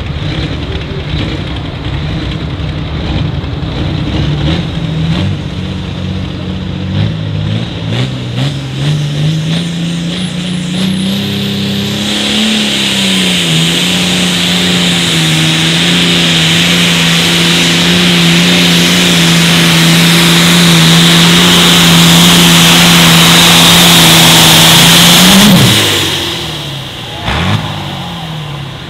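Super Farm pulling tractor's turbocharged diesel engine under full throttle on a pull: it revs up over several seconds, then holds steady at high revs for about twelve seconds while growing steadily louder. About 25 seconds in the throttle is cut and the engine winds down, with one short rev soon after.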